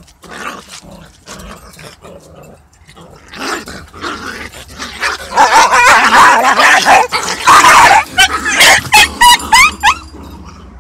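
A small puppy and a large dog fighting. Scuffling and low growls build into loud snarling about five seconds in, and it ends in a few short, high yelps.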